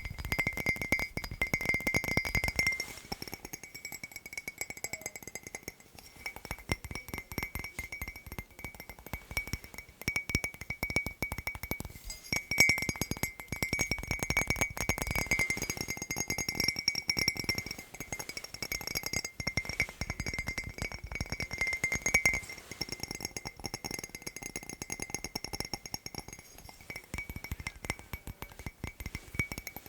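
Fast, dense tapping on hard objects, many taps a second, with clinking and a steady high ringing note.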